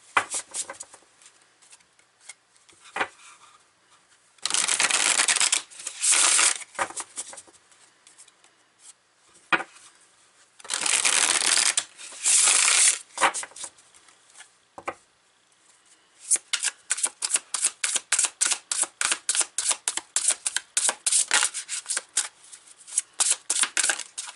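A deck of tarot cards being shuffled by hand: a few longer sliding shuffles in the first half, then, from about two-thirds of the way in, a quick run of sharp card snaps, about five a second.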